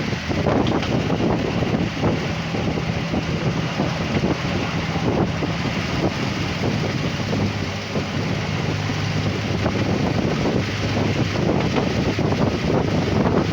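Narrow-gauge diesel railcar running, heard through its open drop-down window: a steady engine drone with rumbling wheels and wind buffeting the microphone. The engine note drops lower about two-thirds of the way through.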